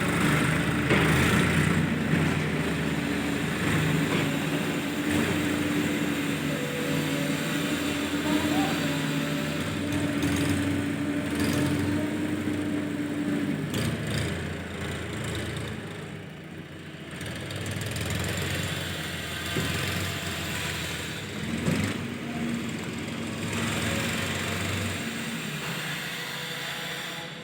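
Diesel engines of a JCB 3DX backhoe loader and a tractor running during loading work, with the engine note changing about halfway through and rising again a little later.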